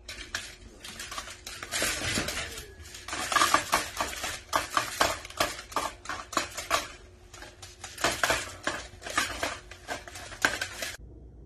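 Rapid, irregular clattering and clacking of hard plastic as a cat paws and scrabbles at a plastic food bin and vertical window blinds. It stops suddenly near the end.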